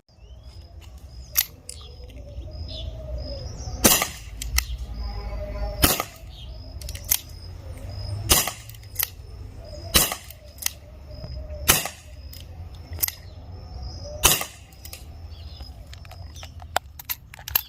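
ASG Dan Wesson CO2 BB revolver firing a series of sharp shots, roughly one every two seconds, with lighter clicks between them.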